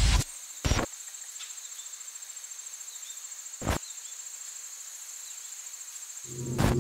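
A high, steady, finely pulsing trill like chirping crickets, over a faint hiss. Two brief loud hits come about a second in and near the middle, and a low hum begins near the end.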